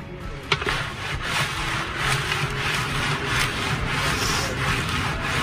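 Metal spoon scraping the inside of a steel pot of freezing sheer yakh set in crushed ice, in repeated rhythmic strokes, about two to three a second. The frozen mixture is being scraped off the chilled pot wall as it sets. A sharp knock about half a second in is the loudest sound.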